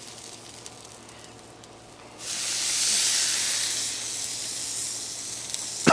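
A consommé-dipped corn tortilla going onto a hot steel flat-top griddle: a faint sizzle, then a sudden loud hiss about two seconds in that eases into a steady sizzle.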